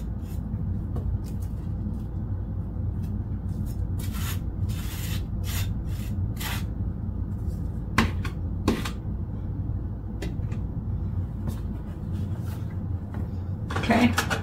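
Butter knife spreading butter on slices of dry toast, a series of short scraping strokes, with two sharp clicks about eight seconds in. A steady low hum runs underneath and drops away near the end.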